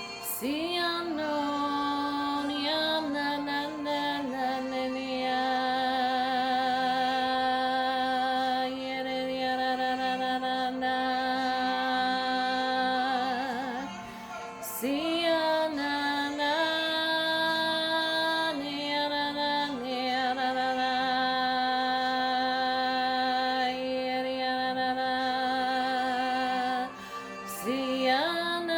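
A woman singing in the spirit, a spontaneous prophetic song of long held notes with vibrato. It breaks off for a breath about halfway through and again near the end.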